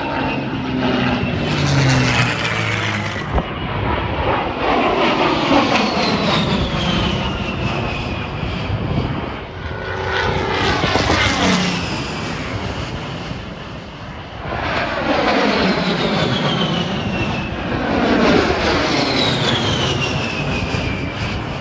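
Propeller airplane engines passing by again and again, about five times, each pass swelling in loudness with its engine pitch falling as it goes past.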